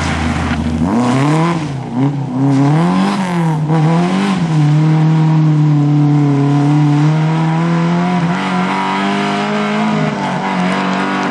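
Lada rally car's engine revving hard as it accelerates away on a gravel stage: the pitch rises and falls several times in the first few seconds, then holds a steady high note.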